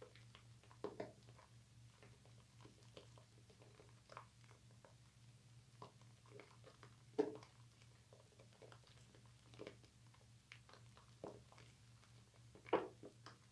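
Soapy hands rubbing and squeezing thick bar-soap lather, giving faint, irregular wet squishes and squelches. The two loudest squelches come about seven seconds in and near the end, over a steady low hum.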